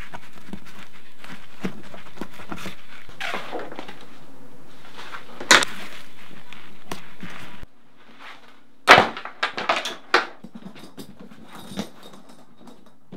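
Handling of a nylon drone carry case: clicks and fabric rustles as its small plastic strap hooks are unclipped, with a loud knock about halfway. Later come several sharp knocks and thumps as the case is lifted and moved about.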